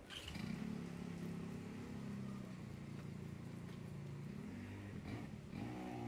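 A motor vehicle's engine running at low revs, its pitch rising about five and a half seconds in as it speeds up.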